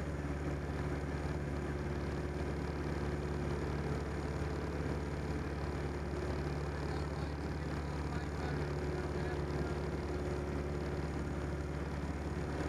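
Piper J-3 Cub's engine and propeller droning steadily in flight, heard from inside the small cabin; the pitch and level stay even throughout.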